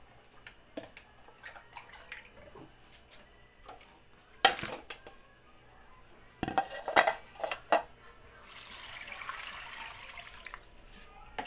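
Plastic bowls knocking in a kitchen sink, one sharp knock and then a quick cluster of knocks around the middle. Near the end, tap water runs into a plastic bowl of chopped vegetables for about two seconds as they are washed.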